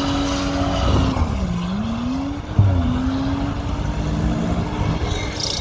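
Car engine running with a steady note that dips in pitch about a second in and climbs back, a sharp crack about halfway through, then a steady note again.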